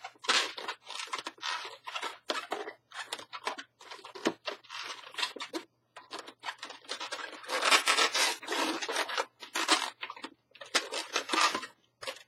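Latex twisting balloons rubbing against each other as they are twisted and wrapped by hand, in many short, irregular strokes. The yellow balloons have lost most of their powder, so the latex grips and drags.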